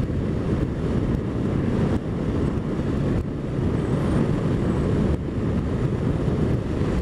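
Wind noise rushing over the microphone on a moving motorcycle, over the running boxer-twin engine of a 2008 BMW R1200 R at road speed, a steady low rumble.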